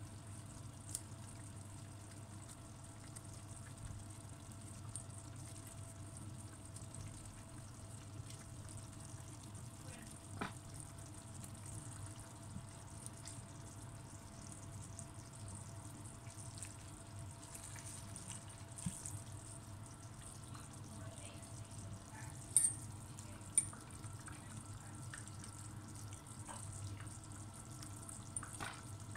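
Faint handling sounds over a steady low hum: scattered light taps and clicks as pieces of dry bread go into a ceramic bowl and are mashed with a fork. Two sharp clicks come about three-quarters of the way through.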